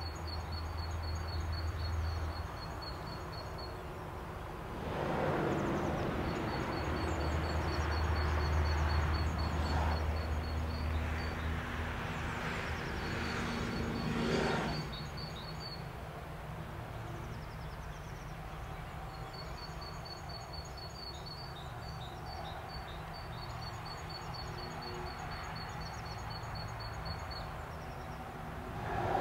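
Outdoor ambience by a railway line: a broad rumble of distant traffic that swells twice in the first half, under a rapid high-pitched ticking trill that repeats in spells of a few seconds.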